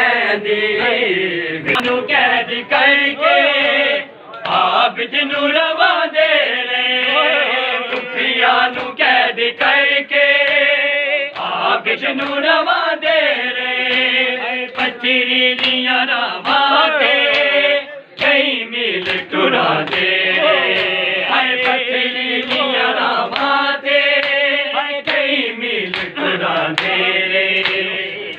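Group of men chanting a Punjabi noha, a mourning lament, in unison, with short breaks between lines. Sharp slaps of matam, hands beating on chests, keep a steady beat about once a second.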